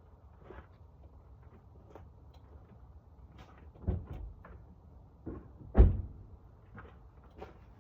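Light clicks and knocks from handling parts on a car, with two heavier dull thumps about four and six seconds in, the second the louder.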